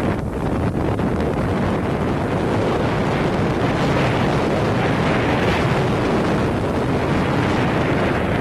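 Steady wind rushing over the microphone of a camera carried by a cross-country skier gliding downhill along a snowy trail.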